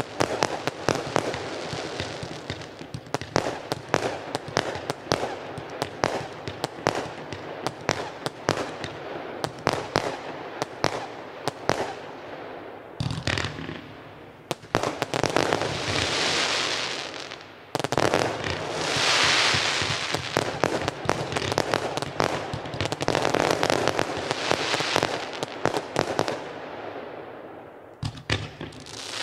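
Consumer firework batteries (cakes) firing. For about the first 13 seconds there is a dense run of rapid shots and bangs; after that come several bursts that each spread into a long rushing crackle of a second or two, with more scattered bangs between them.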